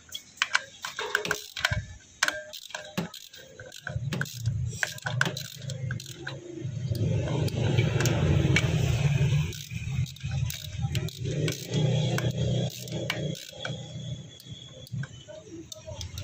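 Ratchet wrench clicking and metal tools clinking while the clutch spring bolts of a motorcycle clutch are worked. From about four seconds in, a steady low drone sets in under the clicks and becomes the loudest sound.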